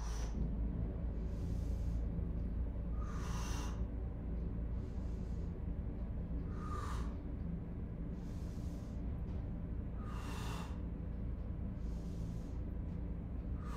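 A woman breathing in rhythm with one-arm dumbbell rows: a louder exhale about every three and a half seconds, with a softer inhale between each, over a steady low hum.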